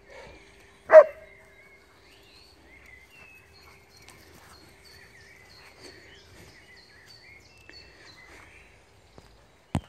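A dog barks once, loudly, about a second in, while birds sing faintly in the background. Two short knocks sound near the end.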